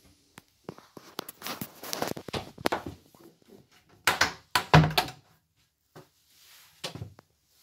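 Wooden cabin door in a Beneteau sailboat's interior being handled and pushed shut. There is a run of small clicks and knocks, then loud thuds about four and five seconds in, and a lighter knock near the end.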